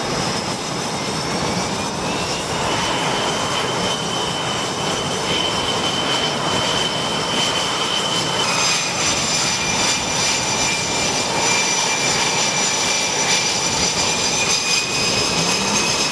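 F/A-18 Super Hornet's twin jet engines running at high power on the carrier deck, a steady jet noise with a high whine that glides up in pitch about two seconds in as the engines spool up. About halfway through the whine steps to a slightly lower pitch, with higher tones added above it.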